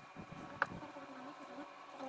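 Quiet room tone with a steady buzzing hum, and a single sharp click a little over half a second in.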